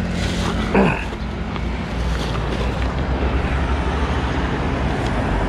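Steady low rumble of road traffic with wind on the microphone, getting heavier about two seconds in, and a short voice sound about a second in.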